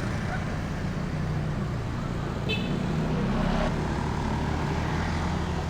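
Road traffic: vehicle engines running steadily, growing louder a little past the middle as one passes closer. A short high chirp sounds about two and a half seconds in.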